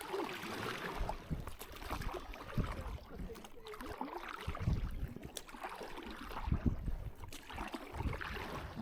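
Rain and water sloshing around a small fishing boat, with scattered low knocks and rumbles from the boat and gear being handled.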